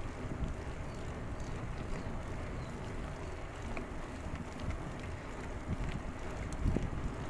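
Wind buffeting the microphone of a camera riding on a moving bicycle, a steady low rumbling rush, with a louder low bump near the end.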